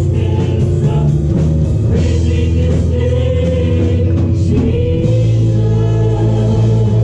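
Live gospel praise music: women singing together into microphones over a small band with guitar and drums, the drums keeping a steady beat.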